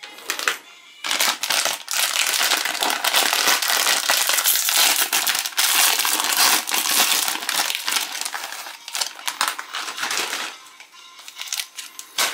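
Foil-lined plastic snack wrapper of a Chipicao croissant pack crinkling loudly as it is handled, opened and rummaged through by hand. It starts about a second in and dies down near the end, with faint background music underneath.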